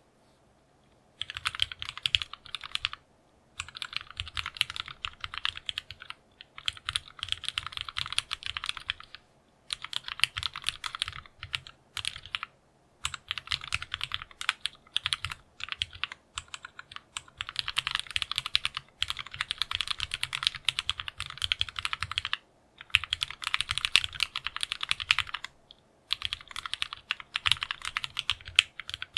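Fast typing on a custom mechanical keyboard, a TGR × Linworks Dolice with polished, lubed Cherry MX Black Hyperglide linear switches, a polycarbonate plate and PBT Dolch keycaps. The keystrokes come in bursts of a few seconds, with brief pauses between them.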